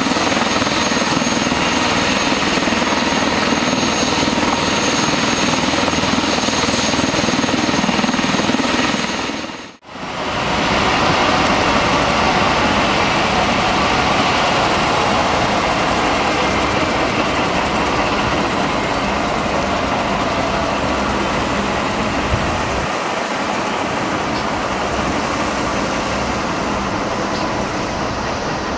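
Airbus H145 twin-turbine helicopter running on the ground: a steady, loud turbine whine over the rush of the rotor. The sound cuts out for a moment about ten seconds in, then carries on.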